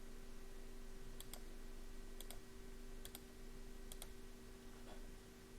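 Faint clicks of a computer mouse, mostly in quick pairs every second or so, over a steady low electrical hum.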